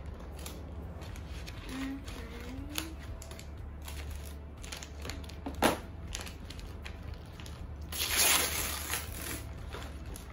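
Gift-wrapping paper being handled and torn off a box: rustling and crinkling, a sharp click about halfway through, and a louder burst of tearing paper near the end, over a steady low hum.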